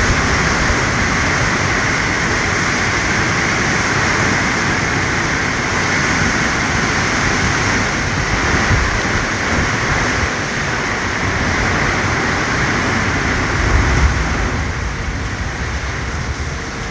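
Heavy rain pouring down in a steady, loud downpour, with a brief low rumble near the end.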